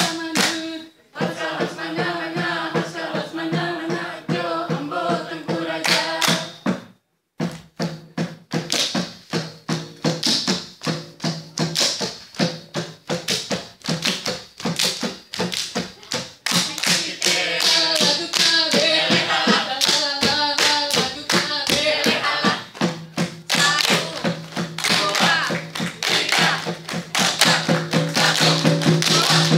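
Saman dance troupe chanting in unison over fast, tightly synchronised hand claps and body slaps. The group stops dead for a moment about seven seconds in, then comes back in with rapid clapping, and the chanting grows fuller in the second half.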